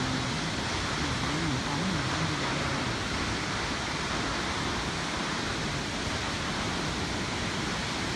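Steady, loud rush of a waterfall, with faint voices in the first couple of seconds.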